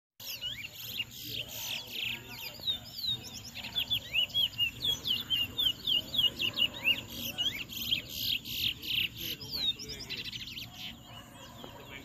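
Caged towa-towa (chestnut-bellied seed finch) singing in a song contest: quick, rapidly repeated whistled chirps. The chirps are densest in the middle and thin out near the end.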